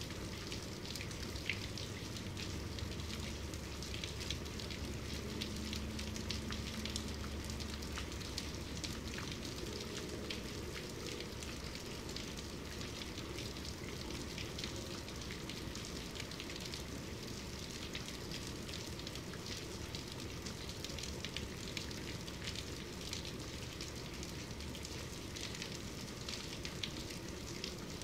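Steady medium-to-heavy rainfall: a dense, even hiss of falling rain with many small, sharp drop ticks. A faint low hum sits under it for a few seconds near the start.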